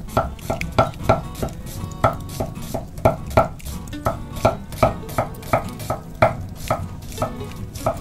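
Chef's knife chopping an onion on an end-grain wooden cutting board: a steady run of sharp knocks of the blade on the wood, about three a second.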